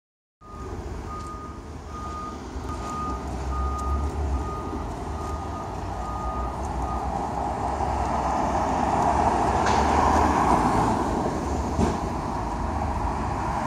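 Box truck's backup alarm beeping at a steady pitch, about two beeps a second, as the truck reverses; the beeping stops about seven seconds in. The truck's diesel engine and street traffic run underneath and grow louder toward the end.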